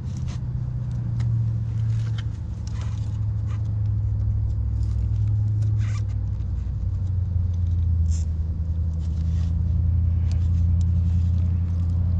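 A steady low hum throughout, with scattered short clicks and taps of tool work on a rusted brake line fitting.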